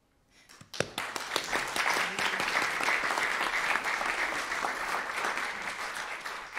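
Audience applauding: many hands clapping, starting about a second in, holding steady, then dying away at the end.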